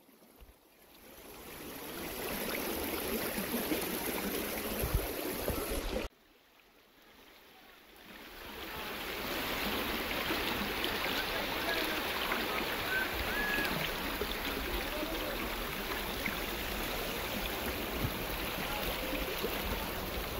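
Shallow river water rushing over limestone rocks and small rapids, a steady hiss of flowing water. It fades up, cuts off sharply about six seconds in, then swells back up after a couple of seconds.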